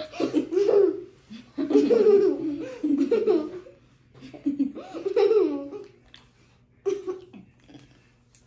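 Two young girls laughing in repeated bursts of giggles that trail off near the end.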